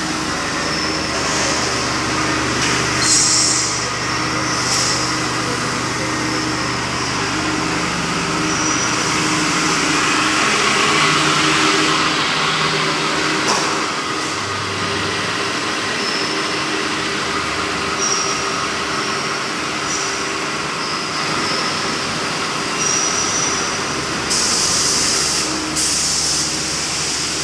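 Steady running noise of PVC pipe extrusion line machinery: a constant mechanical hum with a few steady tones under a broad hiss, with short bursts of louder high hiss about three seconds in and again near the end.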